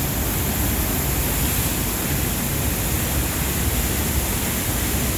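Waterfall rushing: a loud, steady wash of falling water with no break or change.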